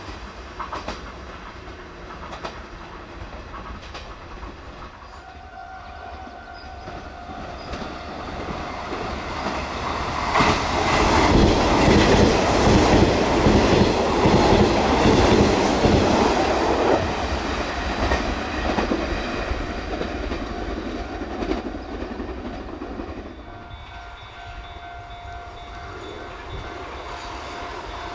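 Nishitetsu 5000 series six-car limited express train passing at about 92 km/h, its wheels clattering over the rails. It is loudest about ten seconds in and fades away over several seconds. A steady tone sounds before the train arrives and again near the end.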